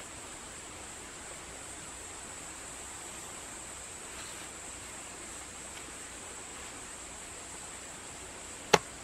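Steady outdoor hiss with a thin, high, unbroken whine over it, and one sharp knock near the end.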